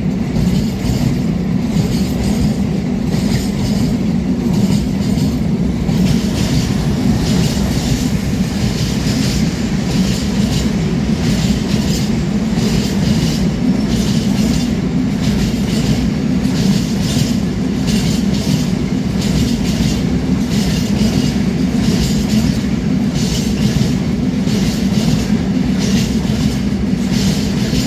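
Freight train of covered hopper wagons rolling past: a loud, steady rumble of steel wheels on the rails, with a constant clatter of clicks from the wheels running over the track.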